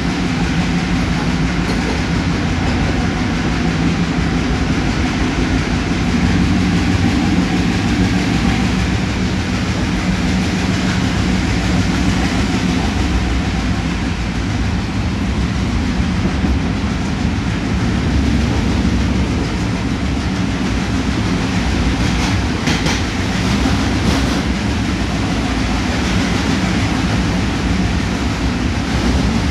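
Twin WDM3D diesel locomotives chugging hard, their engine note echoing in a rail tunnel, over a steady clatter of train wheels on the rails. A few sharper clacks come near the end.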